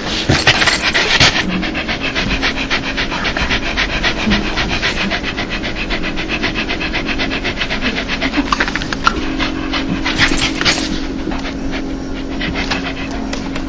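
Dog panting in a quick, even rhythm of short breaths: the 'dog laugh' pant of a happy, excited dog. It grows louder about a second in and again around ten seconds in.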